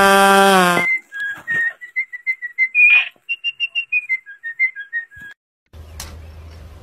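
A short whistled tune of quick separate notes stepping up and down, about four seconds long, starting just after a song cuts off abruptly under a second in.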